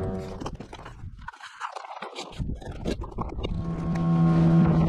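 Paper and a plastic document folder rustling and crackling as they are handled; about three and a half seconds in, a dinghy's outboard motor comes in, running steadily.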